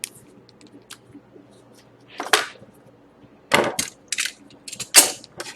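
Trading card packs and their wrappers being handled on a table: a few short rustles and taps, spaced about a second apart.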